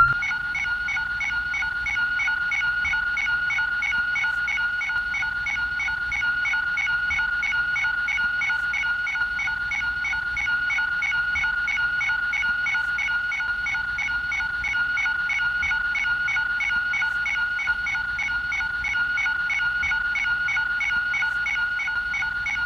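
Ultraman's Color Timer warning sound in its fast stage: one steady high electronic tone with a rapid pulsing beep over it. It signals that Ultraman's energy is nearly spent.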